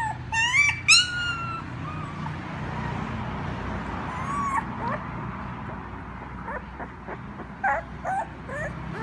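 Young puppies whimpering and yelping: short high-pitched cries that rise and fall, several close together at the start and then scattered ones further on, over a low steady hum.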